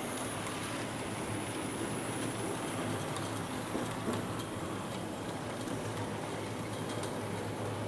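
Model railway train running along the track: a steady hum from the locomotive's motor with the rumble of its wheels on the rails.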